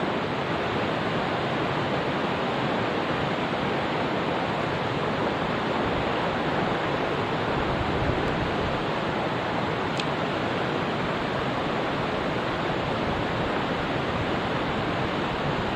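Mountain stream rushing, a steady even rush of flowing water.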